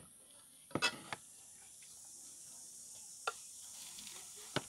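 A few light clicks and knocks of serving utensils against plates and a wok as noodles are dished out, over a steady high hiss.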